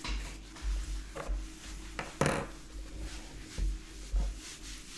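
A paper towel being wiped across a tabletop by a gloved hand: irregular rubbing and swishing strokes, with a sharp knock about two seconds in.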